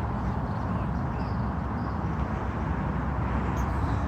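Steady outdoor rumble of road traffic and wind, with a few faint bird chirps in the first second or so.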